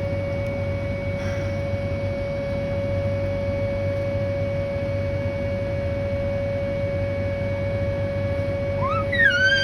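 Whelen 2810 outdoor warning siren sounding a steady 560 Hz tone. Near the end a cat meows loudly over it.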